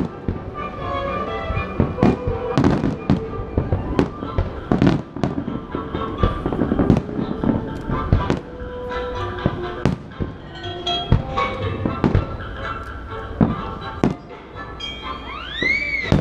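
Fireworks shells bursting in quick, irregular succession, many sharp bangs, over the show's orchestral soundtrack. Near the end a whistle rises and then falls in pitch.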